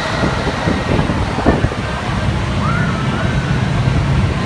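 Steel Venom, an Intamin impulse roller coaster, just after its launch: a steady low rumble of the train running on the track, heard from the loading station, with scattered voices.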